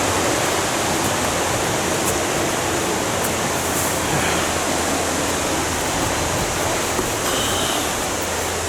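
Steady rushing of a waterfall, falling water making an even, unbroken noise.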